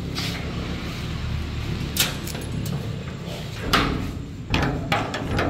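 Blue steel workshop gate being pushed open: sharp metal clanks and rattles about two seconds in and several more near the end, over a steady low engine hum.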